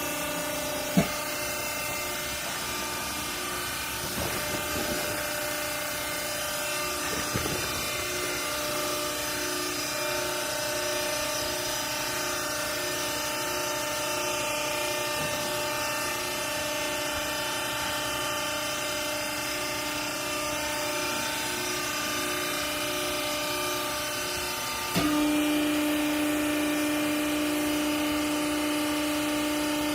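Vertical hydraulic clothes baler's electric motor and hydraulic pump running with a steady hum. About 25 seconds in the hum suddenly gets louder and drops slightly in pitch. There is a sharp click about a second in.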